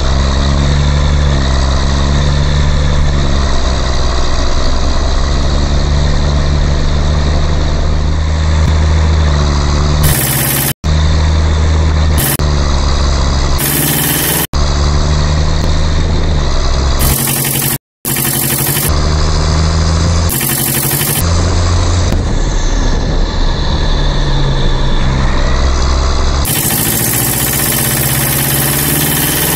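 A heavy diesel engine running steadily with a deep, even throb, laid over as the sound of the toy tractor, broken by three brief dropouts where the footage is cut.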